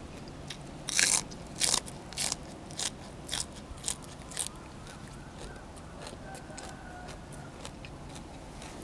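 Close-up crunching and chewing of crunchy food, about two crunches a second, loudest at first and dying away about halfway through.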